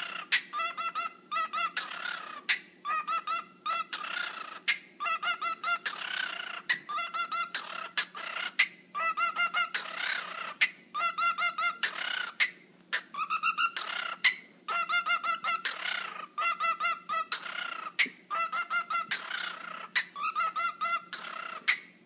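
A parrot calling in rapid stuttering trains of short, pitched squawks, about eight to ten a second, broken every second or two by a harsh hissing screech, in a repeating rhythm like a dubstep wobble.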